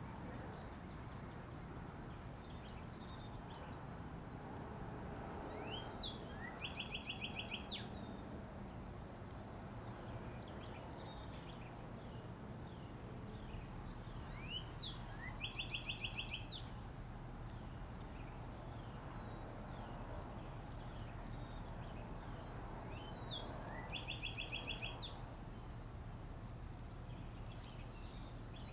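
A songbird singing the same song three times, each a few rising notes followed by a quick run of short repeated notes, over a steady low outdoor hum.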